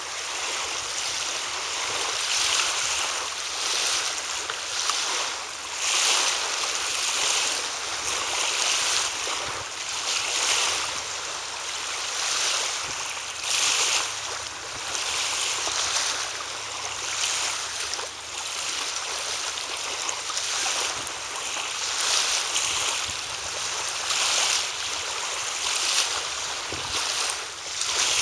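Steady rushing hiss of wind and lapping waves, swelling and easing every second or two.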